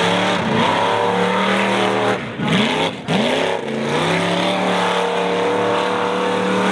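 Off-road race truck's engine running at high revs. The pitch rises at first, then drops and climbs back twice in quick succession about two seconds in, and holds high and steady after that.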